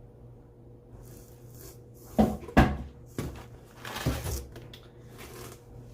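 Hardcover and paperback books being handled and set down: two sharp thumps a little over two seconds in, followed by softer knocks and rustling.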